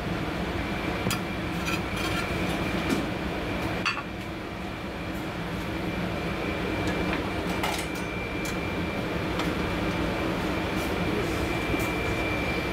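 Steady kitchen equipment hum with a faint high whine, and scattered light clinks of a metal spatula against a metal pan as food is lifted out.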